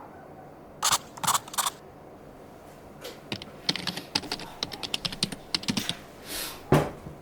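Typing on a computer keyboard: three separate keystrokes, then a quick run of keys, a brief soft rustle and one final heavier keystroke.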